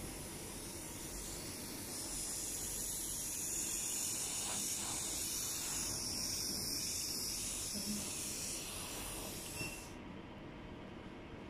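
Spray gun handle of a hydrafacial machine spraying a fine water mist onto a hand: a steady high hiss. It grows louder about two seconds in and cuts off suddenly near the end.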